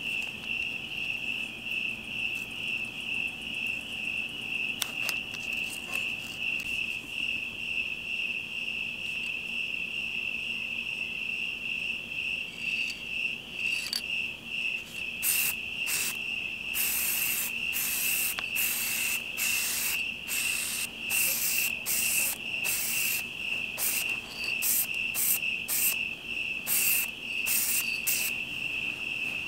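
Crickets chirping in a steady, fast pulse. From about halfway on, an aerosol spray-paint can hisses in many short bursts as a bike frame is painted.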